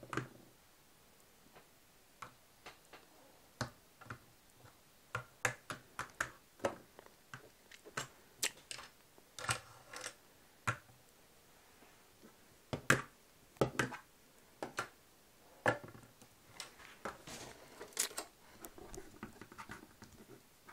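Irregular light taps and clicks of small hard plastic toys, toy horse figures and jump obstacles, handled and knocked against a tabletop. The taps come in small clusters with gaps of near quiet between them.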